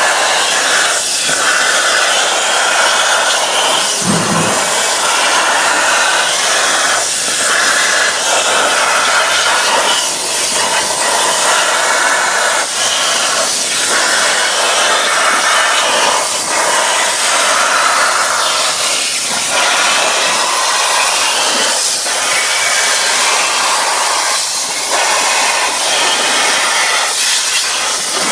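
CNC plasma torch cutting thin stainless steel sheet: a loud, steady hiss from the arc and its air jet, with brief dips every few seconds.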